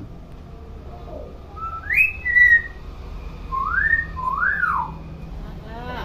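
Hill myna whistling: a rising whistle about two seconds in that settles into a short held note, then two quick rising-and-falling whistles a second or so later.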